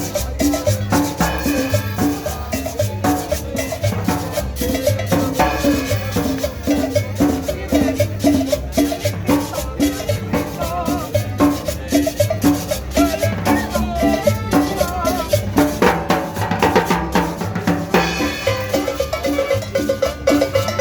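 Dance music with a steady drum and percussion beat.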